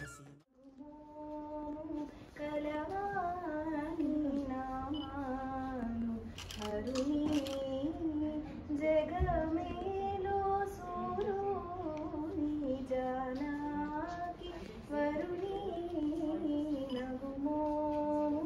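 A woman singing a slow song with no accompaniment, holding long notes that bend up and down. The singing starts about half a second in.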